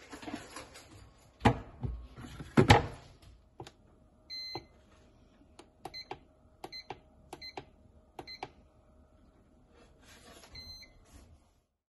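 Two loud knocks as the lidded container is set in place. Then the Kuvings yogurt maker's control-panel buttons are pressed over and over, each press a click, with short electronic beeps, as the maker is set to 60°C for 6 hours. A faint steady hum runs beneath the beeps.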